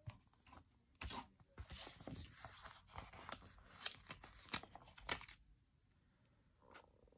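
Sticker sheets and paper being handled: rustling and crinkling with sharp little clicks for about four seconds, stopping a little after five seconds in.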